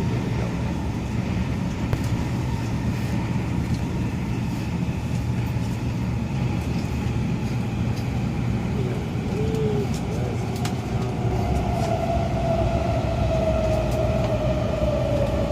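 MTR A-train electric multiple unit running, with a steady low rumble of wheels on rails. In the second half a traction-motor whine comes up and slowly falls in pitch as the train slows.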